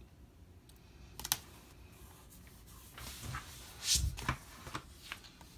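Hands working with a spiral-bound planner and sticker sheets: light clicks, taps and paper rustling. A louder rustle and bump about four seconds in as the planner is turned around on the table.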